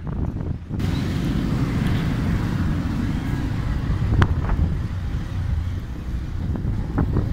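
Low, steady engine rumble and road noise from a vehicle on a rough mountain road. Wind noise on the microphone comes in about a second in, and there is one sharp knock about four seconds in.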